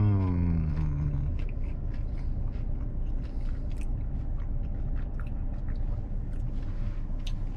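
A person chewing a mouthful of crispy breaded chicken nugget close to the microphone: many small, irregular chewing clicks over a steady low hum. It opens with a falling, hummed "mmm" of approval that fades out about a second in.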